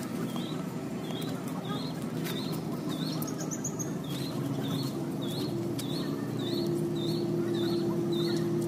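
A small bird calls over and over, a short sharp note about twice a second, over a low steady hum of machinery. A deeper engine drone, like a boat's, grows louder from about two-thirds of the way through.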